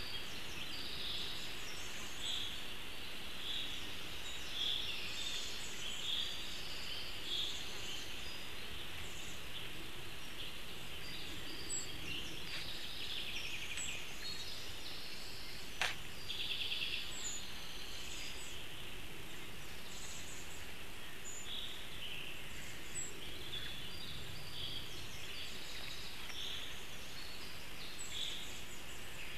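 Woodland songbirds calling and singing in short repeated phrases over a steady hiss, with one sharp click about halfway through.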